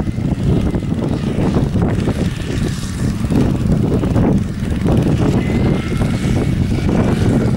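Ransomes MG6 crawler tractor running steadily under way, its engine giving a rapid, even low chugging. A faint high whine comes in about halfway through.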